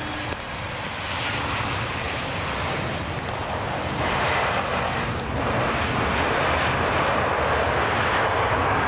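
Jet airliner's engines heard as a steady rushing noise that grows louder over the first few seconds as the plane comes in to land, then holds.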